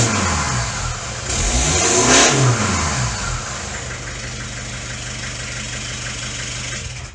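Daihatsu Fourtrak's turbo engine blipped through its new side-exit exhaust: revs falling away at the start, a second rev rising and falling about a second in, then a steady idle that stops right at the end.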